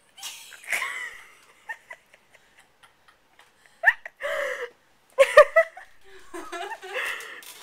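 Stifled giggling and breathy laughter close to the microphone, coming in short irregular bursts, with a squeaky rising note about four seconds in.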